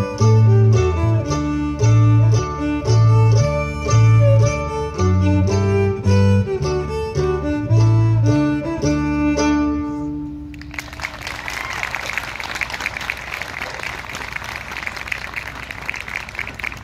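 Fiddle, acoustic guitar and piano playing a lively tune with a strong bass beat. The tune ends on a held note about ten seconds in and gives way to audience applause.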